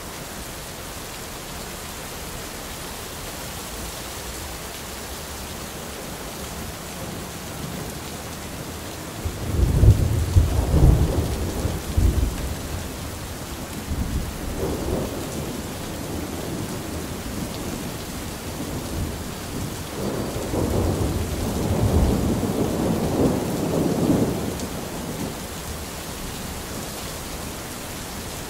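Steady rain with rolling thunder. One peal starts sharply about a third of the way in and is the loudest, a shorter rumble follows near the middle, and a longer roll of thunder comes past two-thirds of the way through.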